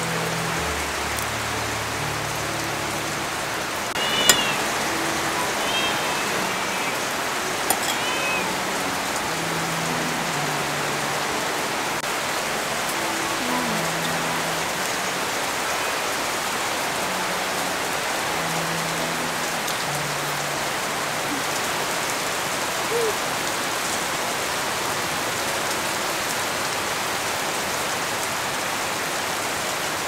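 Steady rain hiss, even and unbroken, with a few short chirps and a couple of light clicks about four to eight seconds in, and faint low held notes beneath.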